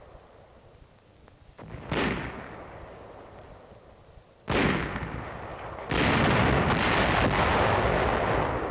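Tank battle gunfire: sharp cannon blasts and shell bursts, one about two seconds in, another about four and a half seconds in, and a heavier one near six seconds in followed by a couple of seconds of loud rumbling that slowly fades.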